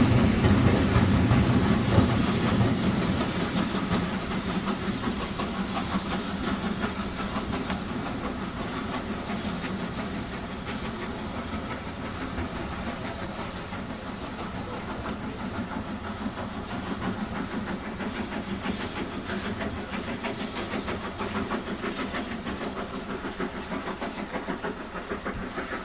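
Steam-hauled passenger train pulling away: coach wheels clattering over the rail joints as the carriages pass, loudest at first and fading over the first few seconds, then a steadier, more distant running sound with steam from the locomotive.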